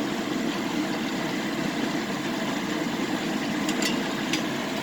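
Hot oil sizzling in a frying pan over a steady low rumble, with a few sharp pops of spattering oil about four seconds in.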